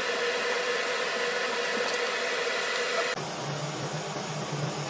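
Bathroom faucet running into a sink basin: a steady rush of water. About three seconds in it changes abruptly to a lower-sounding stream pouring onto the open pop-up drain.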